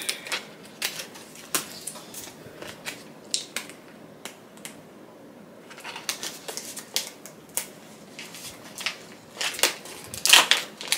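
Hands opening a soap bar's packaging: irregular crinkles, rustles and small clicks, with a louder flurry near the end.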